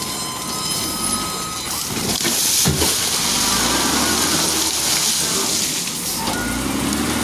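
Heavy construction machinery running: a wheel loader's diesel engine with a steady working noise and a sharp knock about two and a half seconds in.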